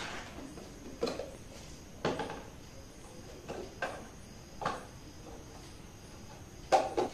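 A handful of short, separate knocks and clicks as storage boxes and their lids are handled and set down.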